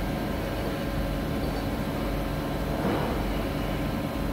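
Spindle of a 2002 Mazak SQT-250 MSY CNC lathe turning its chuck with no cut, a steady mechanical running noise with a faint hum, swelling slightly about three seconds in.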